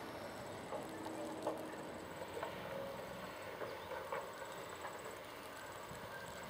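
Distant heavy earthmoving equipment: an excavator and dump trucks running, with a low steady machine noise and irregular knocks and clanks scattered through it.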